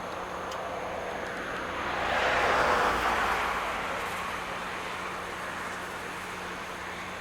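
A vehicle passing by: a rushing noise swells to a peak about three seconds in, then slowly fades.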